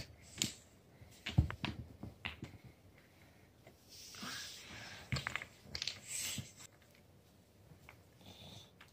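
Faint, scattered clicks and taps of wooden Jenga blocks being pushed and set down, with a duller knock about a second and a half in. A stretch of rustling handling noise comes in the middle.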